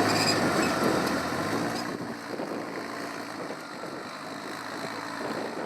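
Off-road rock crawler's engine dying down over the first two seconds, then a steady hiss of wind on the microphone.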